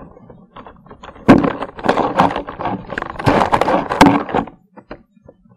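Loud contact noise right on a field audio recorder's microphone: rough knocks and rubbing that start suddenly about a second in and go on in bursts for about three seconds, followed by a few sharp clicks. Something is handling the recorder, which the uploader takes for a Bigfoot attacking it.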